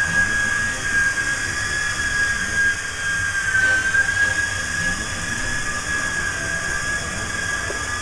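Venom Ozone 3-channel coaxial RC helicopter in flight: the steady high whine of its electric motors and spinning rotors, dipping briefly in pitch about halfway through.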